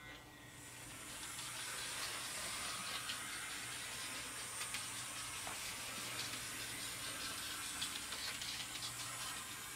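OO gauge model shunter running on the track under power: a steady whirring hiss from its small electric motor and wheels, with light clicks over the rail joints. It builds up about half a second in and fades away near the end as the power is turned down and the shunter stops in the siding.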